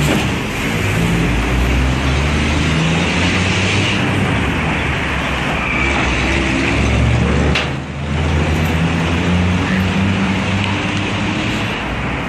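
OM VT4-20NS CNC vertical lathe running, a steady mechanical hum and whir, with a short click and a brief drop in level about eight seconds in.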